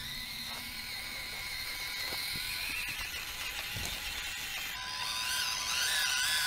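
Axial SCX24 micro RC crawler's small electric motor and gears whining as it drives, the whine climbing in pitch about halfway through.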